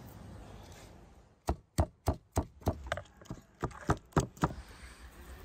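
Wooden pestle pounding garlic and chopped greens in a wooden mortar: about a dozen sharp knocks, roughly three a second, starting about a second and a half in.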